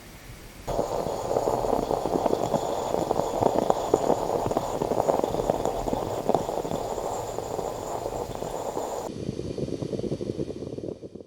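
Bialetti Moka Express 3-cup moka pot gurgling and sputtering loudly as steam forces the last of the coffee up into the top chamber, the sign that the brew is nearly finished. It starts suddenly about a second in, turns duller and quieter about nine seconds in, and fades out at the end.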